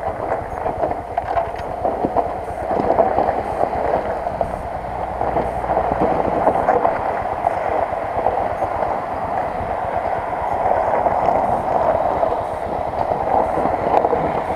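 Motorcycle engine running continuously as the bike rides over a rough dirt trail, with wind rumble on the microphone.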